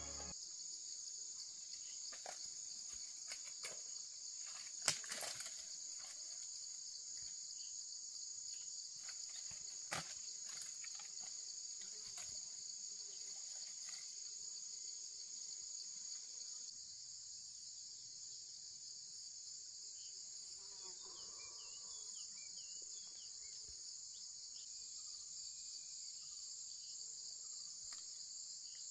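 Steady, high-pitched chorus of insects, with a sharp click about five seconds in and another about ten seconds in.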